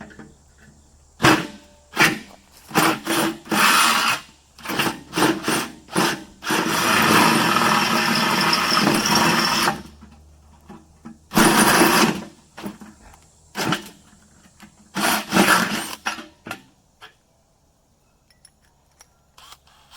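DeWalt power drill running in a series of short bursts, then one steady run of about three seconds, then a few more short bursts, as it bores a hole with an oversized bit.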